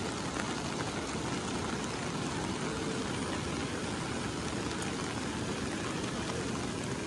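Steady, even rushing noise of rain outdoors, with a low rumble of wind on the microphone.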